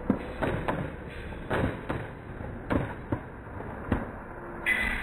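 Fireworks bursting in the air: a run of sharp bangs at irregular spacing, about two a second.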